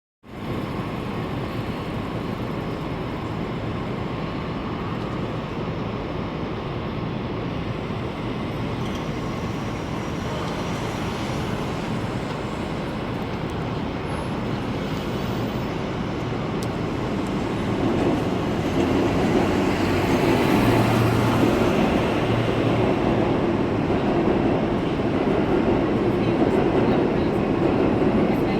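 Steady low rumble of city street noise, swelling louder about eighteen seconds in.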